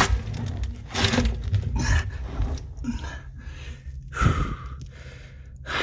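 A man breathing hard, about one heavy breath a second, while squeezed inside an 18-inch concrete pipe.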